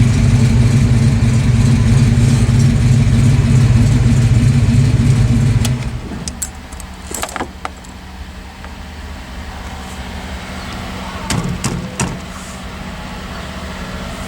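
Ford Mustang Fox-body 5.0 V8 running, then switched off about six seconds in, its engine sound stopping abruptly. A few light metallic clinks follow.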